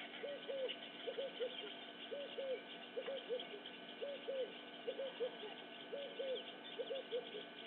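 A dove cooing over and over, short groups of two or three low notes about once a second, with faint high bird chirps behind.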